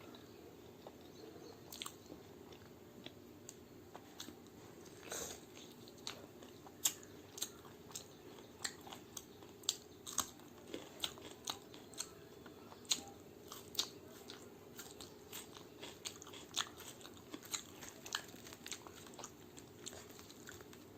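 Close-miked chewing and biting, with sharp crisp crunches of crunchy food coming in quick runs, thickest and loudest in the middle stretch.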